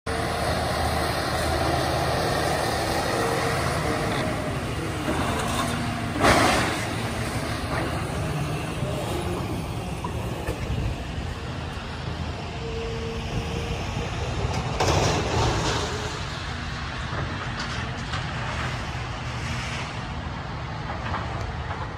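Heavy diesel demolition machinery running steadily, with a couple of short, louder bursts, one about a quarter of the way in and another past the middle.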